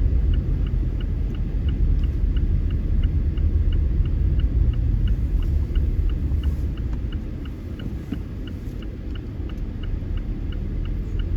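Low road and engine rumble inside a moving car, with the dashboard indicator ticking steadily, about three clicks a second. The rumble eases a little after about seven seconds.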